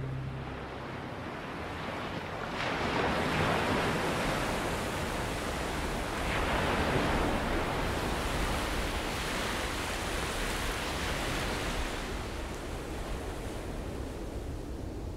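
Sea surf washing in over a stony beach, a steady rush that swells into louder surges about three seconds in and again about six seconds in.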